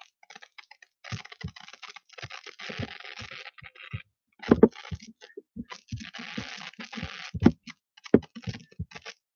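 Typing on a computer keyboard: irregular key clicks, with a few short stretches of soft rustling between them.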